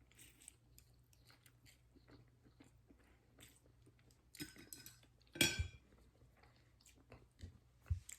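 Faint chewing of pancit rice noodles, with scattered soft utensil clicks and a brief, louder ringing clink about five seconds in.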